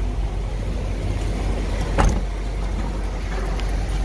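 A 1997 GMC box truck's 5.7-litre (350) gasoline V8 idling with a steady low rumble. A single knock comes about two seconds in.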